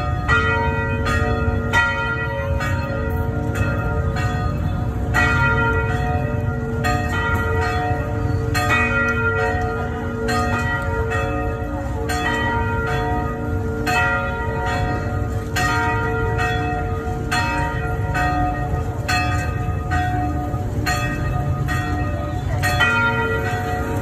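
Church tower bells pealing: several bells of different pitches struck in turn, about two strikes a second, each ringing on and overlapping the next.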